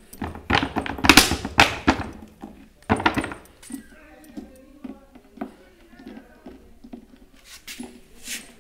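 Empty plastic water bottle crinkling and crackling as a Labrador puppy bites and tugs at it, in bursts over the first three seconds and again near the end.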